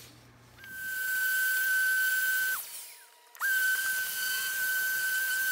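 Power sander with a dust-extraction hose running on MDF: a steady high whine over a hiss, switched off about two and a half seconds in and started again about a second later.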